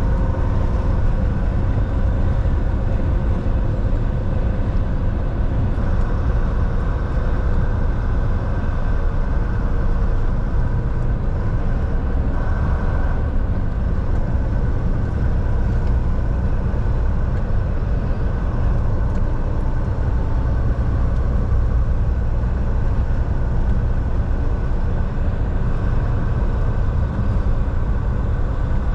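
Volvo semi-truck driving at a steady speed: a constant low rumble of engine and road noise, with a faint steady whine above it.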